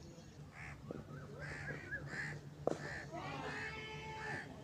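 A single sharp crack of a cricket bat hitting the ball, about two and a half seconds in, among repeated outdoor calls and voices.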